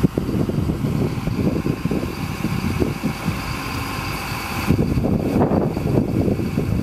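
Truck engine running to power a lorry-mounted HIAB crane, with a steady whine from the crane's hydraulics that cuts off suddenly about five seconds in. Wind buffets the microphone.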